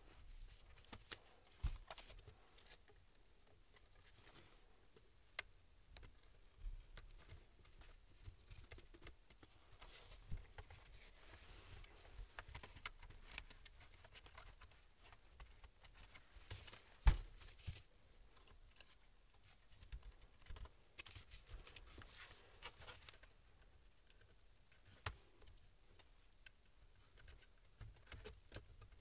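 Scattered faint clicks, taps and light rattles of an opened HP laptop's plastic case, cable connectors and motherboard being handled during disassembly, with one louder knock about seventeen seconds in.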